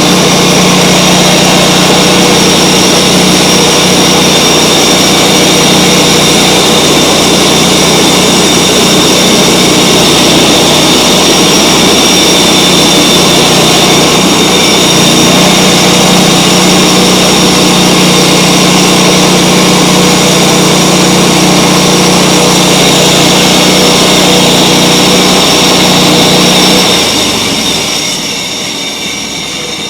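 Mechmaxx 36-inch band sawmill's engine running steadily at high throttle, with a steady high whine over the engine note. Near the end the sound drops and gets quieter.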